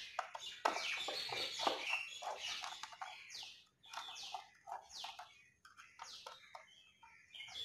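Birds chirping: a run of short calls that fall in pitch, about two a second in the middle, with a few faint knocks before them.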